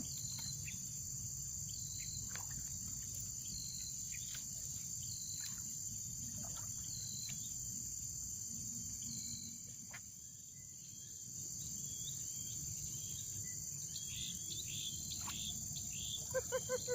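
Steady high-pitched insect chorus, with short falling bird chirps scattered through it. Near the end comes a quick run of about eight pitched notes, likely a bird call.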